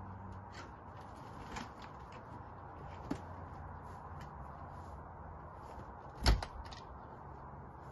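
A wooden storage-room door pushed shut with a single loud thud about six seconds in, after a few small clicks and a lighter knock. A steady low hum runs underneath.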